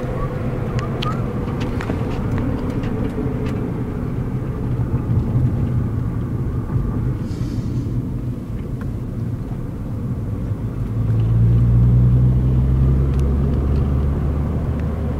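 Car engine and tyre noise heard from inside the cabin while driving, with a few light ticks near the start; about eleven seconds in the engine grows louder.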